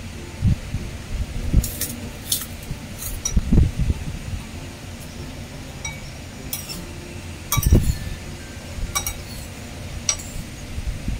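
Metal spoon clinking against a porcelain bowl while eating, in a string of sharp irregular taps, with a few dull low thuds mixed in.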